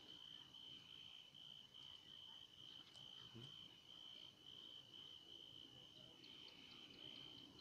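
Faint insect trill at night: one steady high-pitched note that goes on without a break.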